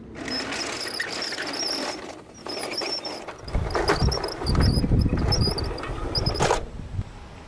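Plastic toy carrier truck rolling along, its wheels squeaking in a high wavering tone over a scraping rolling noise, with a heavier rumble in the second half before it stops short.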